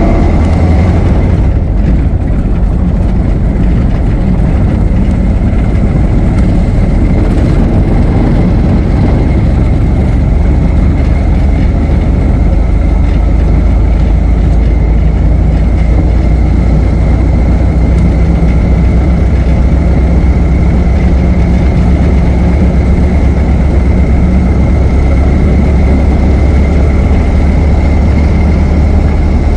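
Ford Model T's four-cylinder engine running steadily as the car drives, a deep, even rumble with a thin steady whine above it. It cuts in suddenly at the start.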